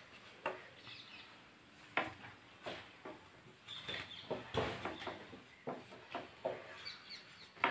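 A spatula scrapes and taps against a nonstick frying pan as ghee-fried plantain slices are lifted out. The sounds are faint, scattered clicks and scrapes.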